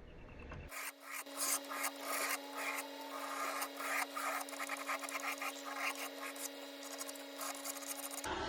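Paint scraper with a curved profile attachment scraping old paint off a wooden dresser's curves in many short, quick strokes, over a faint steady hum.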